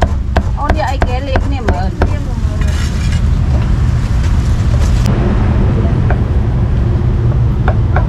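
A meat cleaver chopping braised meat on a round wooden chopping block, sharp knocks about three a second for the first two seconds, then only a few single knocks, with more chopping starting near the end. A steady low street-traffic rumble runs underneath.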